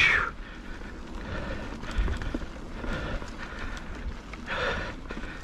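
Mountain bike rolling over a dirt trail: tyre and trail rumble with knocks, wind noise on the microphone, and a hissing surge about every second and a half, loudest at the very start.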